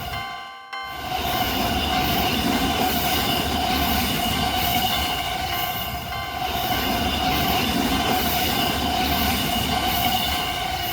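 A train running over a railroad level crossing, its wheels rumbling while the crossing's warning bell keeps ringing in a steady repeating rhythm. The sound drops out briefly just after the start.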